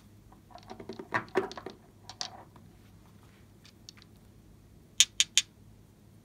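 Small nail polish bottles being picked up and handled, knocking against each other and the table in a short clatter about a second in. Then three sharp clicks come in quick succession about five seconds in, as a bottle's cap is gripped.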